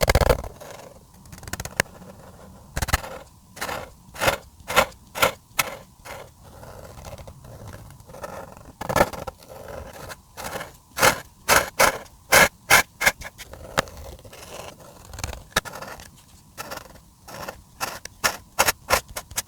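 Felt-tip marker strokes scratching across paper, short and irregular, coming in quick runs of several strokes at a time.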